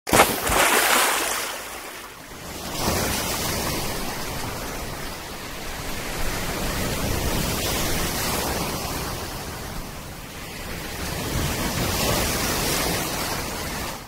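Sea waves washing and breaking in shallow surf, the rush of water swelling and ebbing in surges.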